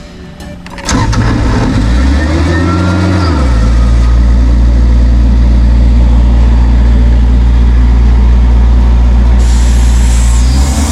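Diesel air compressor engine starting about a second in, its revs rising and dropping back once, then running steadily with a deep drone; the revs begin to climb again near the end.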